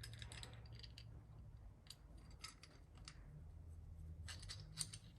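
Faint, scattered light clicks and small rattles of handled hardware: wood screws and spacers being fitted into the slots of a quick-release wall-mount bracket.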